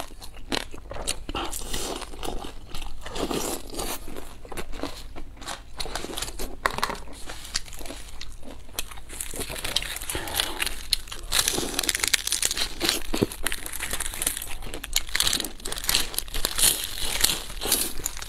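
Crisp pan-fried vegetable-filled pastry crunching as it is bitten and chewed, then crackling as the large crisp sheet is handled and torn in disposable plastic gloves, which crinkle along with it. The crackling gets denser and louder about halfway through.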